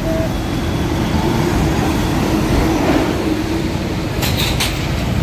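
Steady rumble of passing road traffic, with three short sharp clicks near the end.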